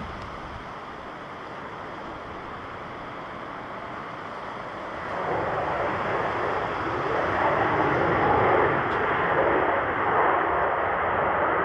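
Jet engines of a Skymark Boeing 737-800 on its landing run, a steady rushing roar that grows louder about five seconds in as the airliner comes closer.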